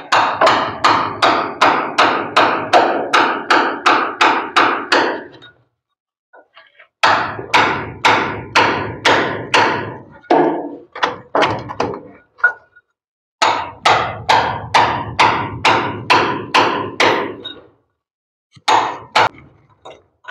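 Hammer striking a chisel in quick, ringing blows, about three or four a second, in four runs with short pauses between: a groove for a pipe being cut into a wall by hand.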